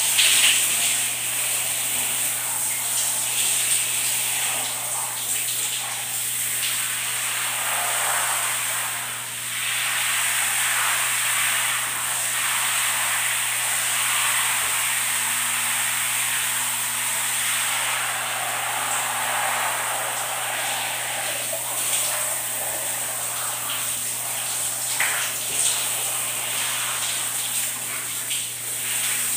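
Shower spray running steadily, its hiss shifting as the water falls on a person's hair and body, over a faint low steady hum.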